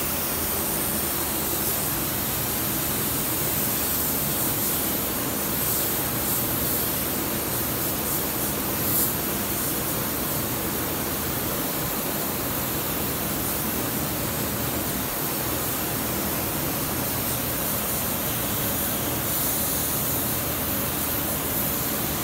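Gravity-feed paint spray gun hissing steadily as it sprays paint, a continuous rush of compressed air with a slightly louder moment about nine seconds in.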